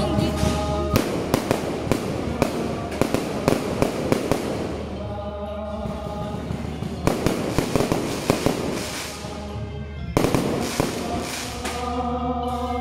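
Fireworks going off: many sharp bangs in quick, irregular succession, with music with held notes playing underneath, coming through most clearly in the lulls between the bursts.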